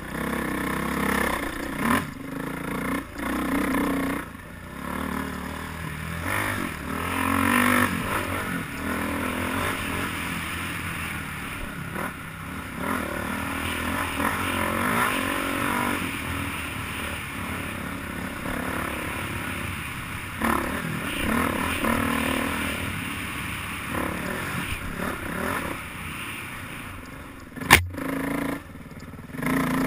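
Dirt bike engine being ridden on a trail, its pitch rising and falling as the throttle opens and closes, with a few sharp knocks, the loudest near the end.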